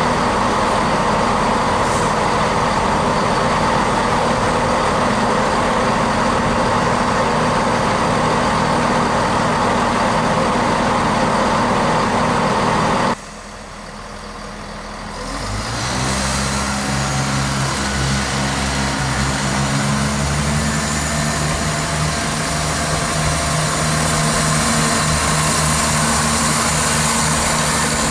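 A class 153 diesel multiple unit's underfloor diesel engine running steadily. About halfway through the sound cuts away suddenly, and the steady low engine hum of a class 170 Turbostar diesel multiple unit then builds up as the train runs in along the platform.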